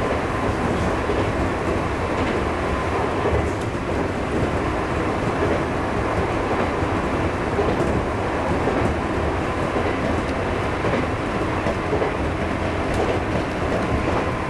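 A 211 series electric train running along the track, heard from inside its driver's cab: a steady rumble of wheels on rail with the odd faint click.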